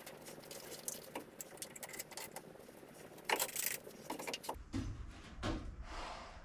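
Small clicks, taps and rattles of hand tools being handled on plywood, with a louder scraping rush a little past three seconds in. About four and a half seconds in the sound changes abruptly to a low hum with a few soft rushing swells.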